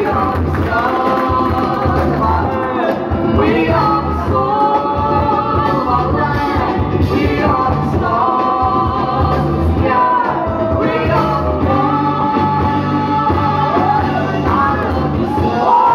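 Loud music: a sung vocal over a steady, heavy bass beat.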